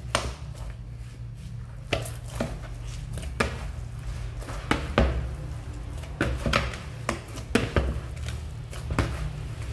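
Hands kneading pizza dough in a bowl: irregular knocks and thumps of the dough being pushed and the bowl shifting, about once or twice a second, over a low steady hum.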